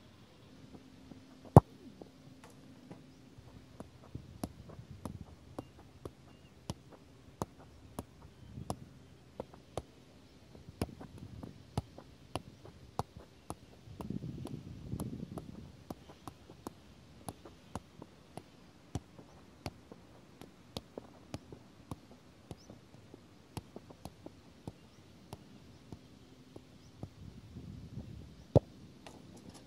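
A football being juggled: a steady run of light knocks, about three every two seconds, as the player's foot and knee touch the ball. A much louder single strike of the ball comes about a second and a half in, and another near the end as the ball is kicked.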